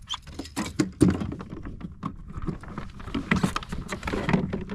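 Irregular knocks, taps and thumps on a plastic kayak as a freshly caught fish is handled and unhooked, with one sharper knock about a second in.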